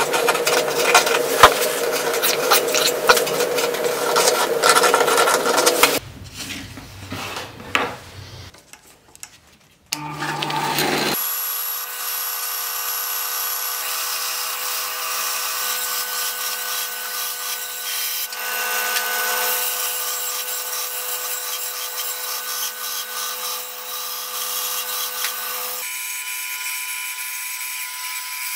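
Scratching with scattered clicks for about six seconds, then a quieter lull; about ten seconds in a band saw starts and runs steadily, its blade cutting through a wooden board along a curve.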